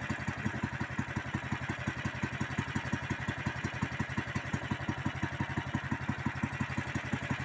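Engine of an Uragan Taiga pushing-type motor tug idling steadily, an even low putter of about seven beats a second.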